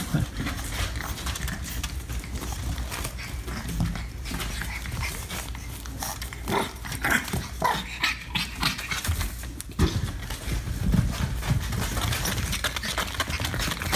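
Two French bulldog puppies playing and scuffling, with a few short high yips about halfway through among scattered knocks and rustles.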